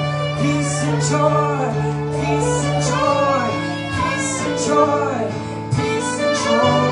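Live worship music: guitar over held bass notes that shift twice, with a gliding melody line above.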